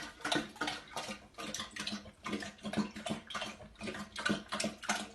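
Water splashing or sloshing in short, irregular strokes, a few a second, over a faint steady hum.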